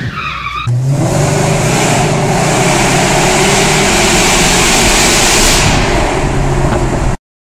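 Mercedes E55 AMG's supercharged 5.4-litre V8 heard from inside the cabin while driving at speed through a road tunnel: loud and steady engine and road noise. It cuts off abruptly near the end.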